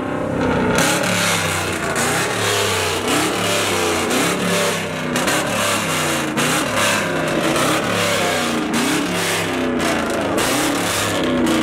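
Chevrolet Silverado pickup's engine revved over and over through its exhaust, the pitch rising and falling in quick repeated revs.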